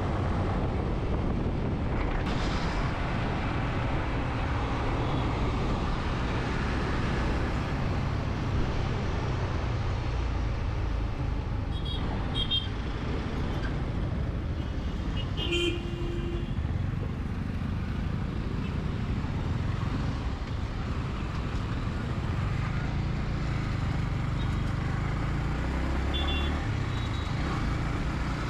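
Motorcycle riding at road speed: the Yamaha MT-15's single-cylinder engine running under a steady rush of wind and road noise. Vehicle horns sound briefly three times, about twelve, fifteen and twenty-six seconds in.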